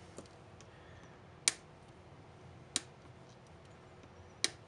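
Xuron flush cutters snipping the excess leads of freshly soldered transistors on a circuit board: three sharp snips a second or so apart, with a fainter click just after the start.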